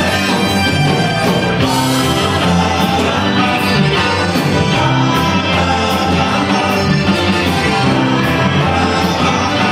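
Live Tex-Mex rock-and-roll band playing: electric guitars, bass, drums and accordion under a steady drumbeat, with a singer.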